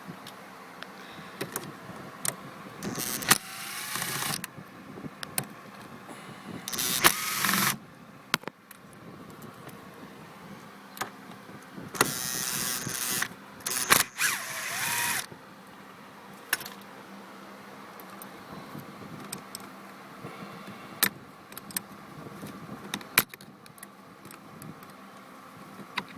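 A Torx driver loosening the upper-housing mounting bolts on a GM truck steering column. Scattered sharp metallic clicks and clinks, with four rasping bursts of about a second each as the tool turns the bolts.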